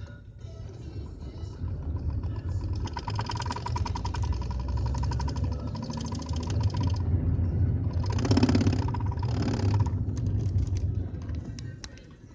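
BMW 320d E46 2.0 four-cylinder diesel engine pulling under acceleration in a low gear, with a fast rattling noise from about three to seven seconds in and two louder rushing bursts around eight and nine and a half seconds. The rattle is the unexplained noise the owner hears when accelerating.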